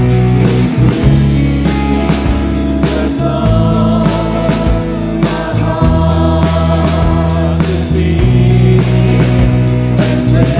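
Live church worship band playing a praise song on drum kit, electric bass, electric and acoustic guitars and keyboard, with a group of singers singing the melody, clearest through the middle.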